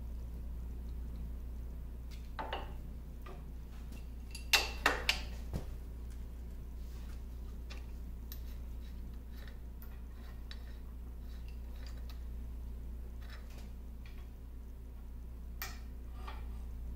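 A screwdriver and loose metal parts clinking against the lathe's change gears: scattered light ticks, with a quick run of four sharp metallic clinks about four and a half seconds in and another near the end, over a steady low hum.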